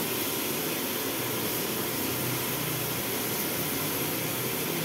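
Steady rushing roar of a stove burner's flame under a steel kadai of chicken, with a faint low hum under it.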